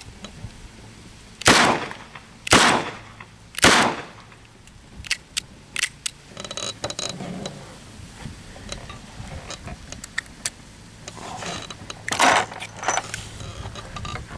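Armscor Model 200 .38 Special revolver firing three shots, about a second apart, with 158-grain .38 Special rounds. A few light clicks and a brief metallic rattle follow.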